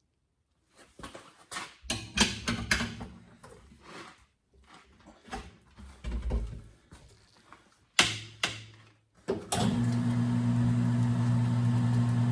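Metal clanks and knocks as the wheel is set up on a Katool tire changer. Near the end the machine's motor starts suddenly and runs with a steady hum, spinning the turntable to work the tire off the rim.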